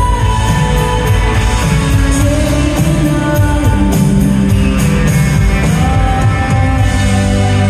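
Live indie rock band playing a song: electric guitars, keyboard and drums with steady cymbal strokes, with a sung vocal over them.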